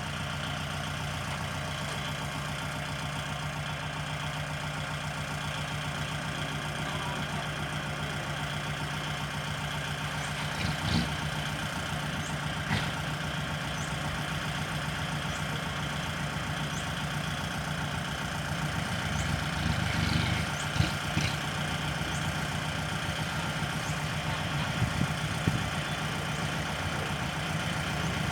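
Farm tractor engine running steadily at an even speed, with a few brief knocks partway through.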